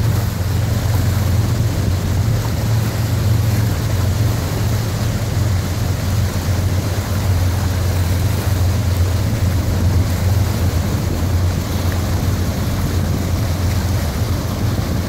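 Willamette Falls and the white-water rapids below it rushing, a loud, steady roar of water heaviest in the low end, with no break or change.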